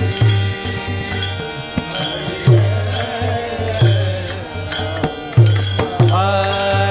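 Devotional-style Indian music: deep drum hits and bright cymbal or jingle strikes about twice a second under a wavering melody.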